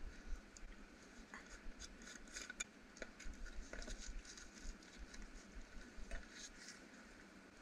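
Faint, irregular small clicks and light rustling: a wood campfire crackling while hands handle a small metal tin and a paper bag.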